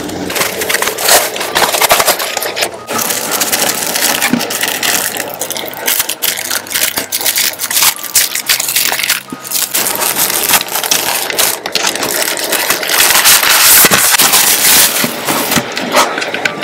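Plastic wrapping and foam packing crinkling and crackling close to the microphone as they are handled and pulled off, with scrapes and small taps throughout.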